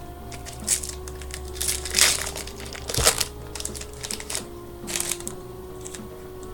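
Foil trading-card pack wrapper crinkling and being torn open, with cards handled, in several short crackly bursts.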